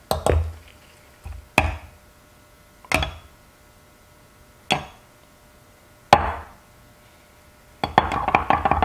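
A spatula knocking against a glass measuring cup while stirring liquid soft plastic bait mix: five separate knocks a second or two apart, each ringing briefly, then a quick run of clicks near the end.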